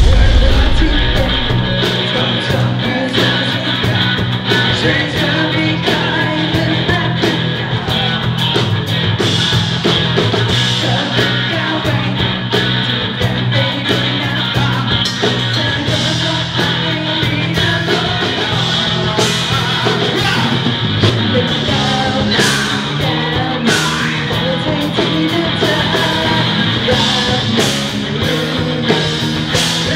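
A live rock band playing a song with a woman singing lead over bass, guitar and drums.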